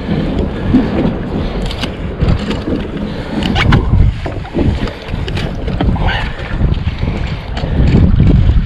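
Wind buffeting a small action-camera microphone as a low, uneven rumble, with a few sharp clicks and knocks from handling a fish and a metal lip-grip scale.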